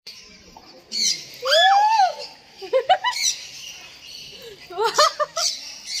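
Sun conures giving short, shrill squawks a few times, mixed with people laughing and exclaiming as the birds perch on their hands.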